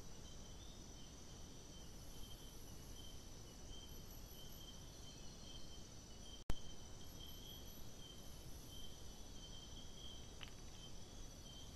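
Night insect chorus: steady high trilling with pulsing notes, over faint hiss. A single sharp click about halfway through, at a join between two recordings.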